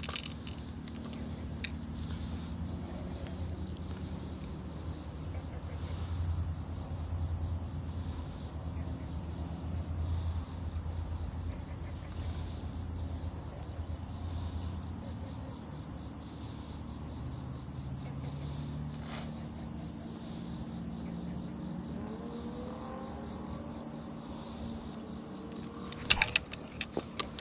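Night insects, crickets, chirping steadily over a low hum. Near the end comes a quick cluster of sharp clicks and knocks from the fishing rod and reel being handled.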